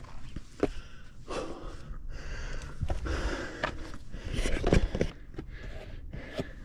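A hiker breathing hard while stepping down a rock scramble, boots scuffing and knocking on rock, with a heavy thud about three quarters of the way through.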